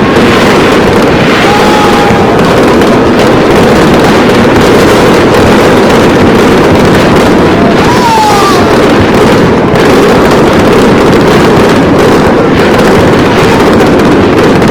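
Aerial fireworks going off in a dense, continuous barrage of overlapping bangs and crackles, loud enough to overload the microphone.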